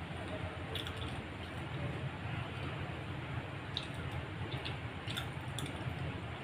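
Wet chewing and squishing sounds of a person eating fried fish and rice with her fingers, with a few light clicks, over a steady low hum.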